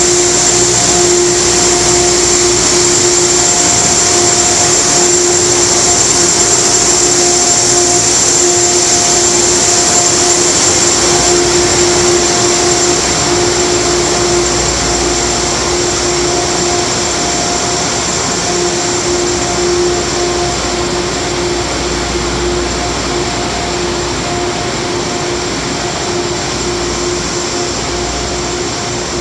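Amtrak P32 locomotive standing in the station: a loud, steady whir of fans and machinery with a constant hum, easing a little about halfway through.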